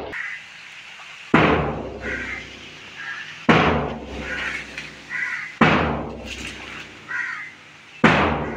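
A large drum beaten in a slow, steady beat, one heavy stroke about every two seconds, each ringing out and fading, with lighter short sounds between the strokes.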